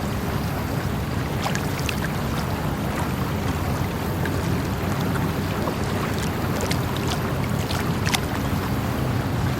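Water flowing steadily, an even rushing with scattered short, sharp ticks and plinks over it.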